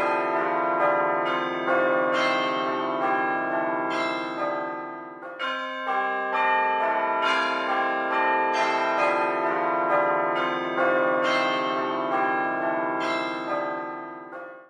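Church bells ringing a peal, many bells struck in quick succession with their tones overlapping. The ringing thins out briefly about five and a half seconds in, then fades and cuts off suddenly at the end.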